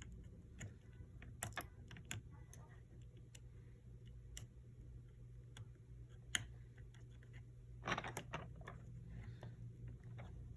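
Small, irregular clicks and taps of hand repair tools working on an opened iPhone 11's parts, bunched in two short flurries with a sharper single click between them. A low steady hum runs underneath.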